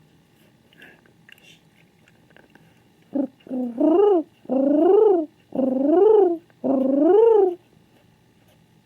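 King pigeon cooing: two short notes, then four long coos about a second apart, each rising and then falling in pitch.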